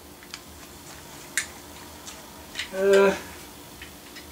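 Light clicks and taps of a die-cast model fire engine being handled and turned over in the hands, with a brief hummed voice sound about three seconds in.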